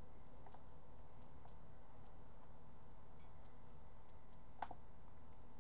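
About eight short, sharp high ticks at irregular intervals over a faint steady hum: the keys and selector wheel of a Jeti DS-12 radio transmitter being worked to set a timer.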